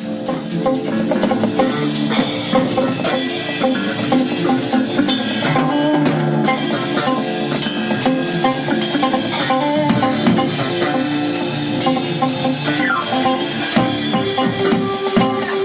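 Live jazz-fusion quartet playing: drum kit with electric bass, keyboards and electric guitar, at a steady loud level.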